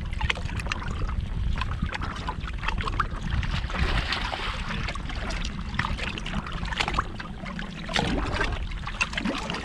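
Small waves lapping and slapping against a fibreglass bass boat's hull in irregular splashes, over a gusty wind rumble on the microphone.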